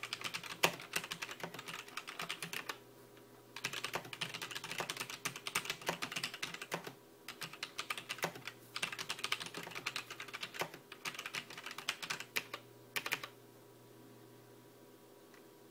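Typing on a Zalman ZM-K500 mechanical keyboard with linear, Cherry-red-style (non-Cherry) switches: fast runs of key clicks broken by short pauses. Near the end the typing stops.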